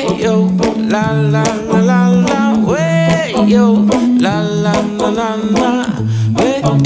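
Background music: a song with a sung melody over guitar and a bass line.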